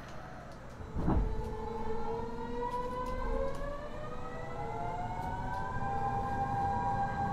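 Kyoto Subway Series 50 train's Mitsubishi Electric GTO-VVVF traction inverter whining, heard from inside the car as the train accelerates. After a thump about a second in, several tones climb steadily in pitch, and one settles into a steady tone about six seconds in.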